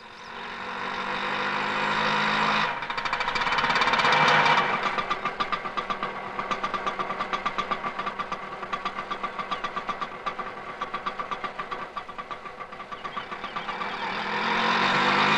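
Two-stroke auto-rickshaw engine: it swells as the rickshaw comes in, then idles with an even putter of about five beats a second, and rises again near the end as it is revved.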